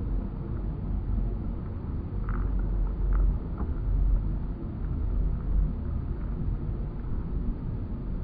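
Steady low rumble with a few faint ticks a couple of seconds in.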